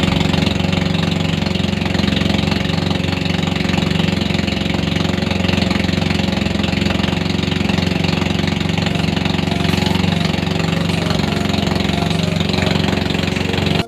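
Engine of a motorized bangka (Philippine outrigger boat) running steadily while the boat is underway, an even low drone.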